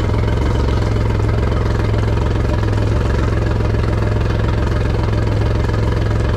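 Outboard motor idling steadily, running on fresh water fed through a flushing muff over its lower-unit water intake to flush out the salt after use in seawater.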